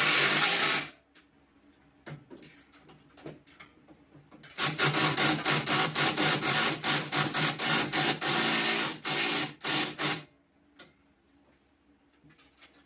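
Cordless drill/driver running bolts into a go-kart's front bumper: a brief burst, then after a pause a longer run of about five and a half seconds that pulses on and off.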